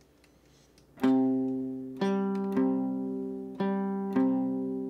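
Archtop guitar with f-holes, strummed as the song's introduction. After about a second of near silence, the same chord is struck repeatedly in a lilting long-short rhythm, each strum ringing on and fading before the next.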